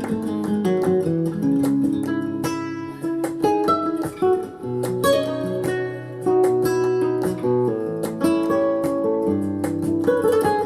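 Acoustic guitar music, plucked and strummed, with a melody of changing notes over lower sustained tones.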